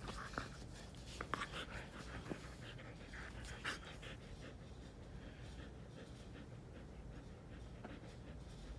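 A husky play-fighting, mouthing at its owner's arm, with short breathy sounds, several in the first four seconds and fainter after.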